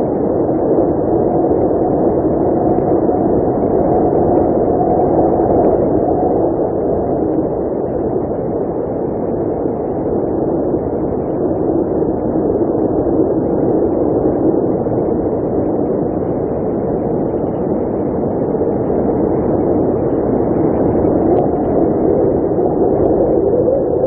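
Blizzard wind blowing hard and steadily, a dense rushing noise that swells and eases slowly.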